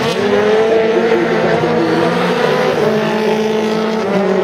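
Peugeot 208 rally car's engine revving hard, the note rising and falling as it is driven through tight corners, easing to a steadier lower note around three seconds in.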